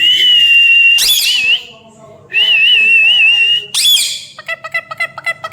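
Pet parrot whistling: a long, steady high whistle, a sharp rising screech about a second in, a second whistle with a wavering pitch, another screech, then a quick chattering run of short repeated notes near the end.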